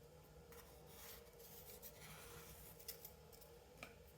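Faint scratching of tracing around a cardboard tube onto paper circles, with a few light taps.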